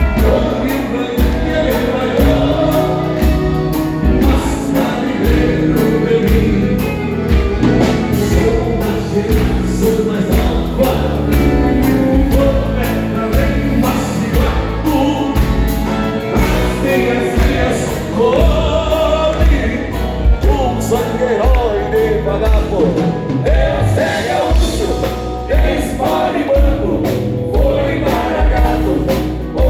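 A live band playing a song with a steady beat and bass, with singing over it.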